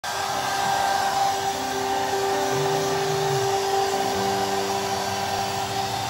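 Hair dryer running steadily, drying a dog's wet fur.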